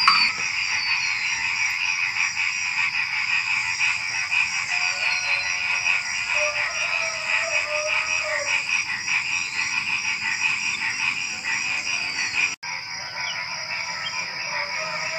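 Night chorus of frogs and crickets: a dense, steady trilling with frog calls over it. It breaks off for an instant about twelve seconds in.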